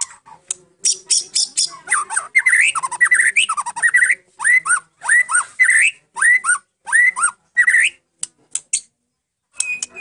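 White-rumped shama (murai batu Medan) singing loudly: a quick run of sharp, high clicking notes, then repeated phrases of swooping whistles mixed with high notes, broken off by a short pause near the end.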